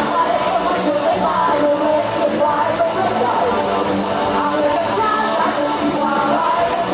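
A live band playing amplified pop-rock music through a PA system, with a woman singing lead vocals over it.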